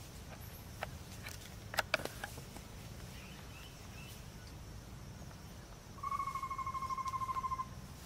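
Amazonian pygmy-owl (Glaucidium hardyi) singing: one rapid trill of whistled notes on a single pitch, lasting about a second and a half, starting about six seconds in. A few faint clicks come earlier.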